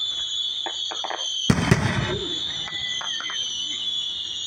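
Aerial fireworks exploding at a distance: a few sharp cracks, then a loud double boom of bursting shells about a second and a half in, then scattered pops. A steady high-pitched hum runs underneath.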